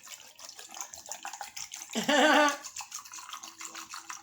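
Close-up wet chewing and lip-smacking of someone eating stew and rice, with a short voiced hum of enjoyment about two seconds in.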